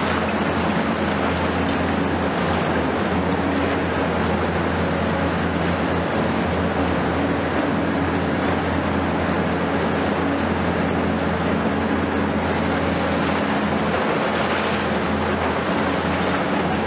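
Heavy excavator diesel engines and hydraulics running steadily on a demolition job, including a Hitachi 870 long-reach excavator and a smaller excavator, giving a constant low drone over an even hiss.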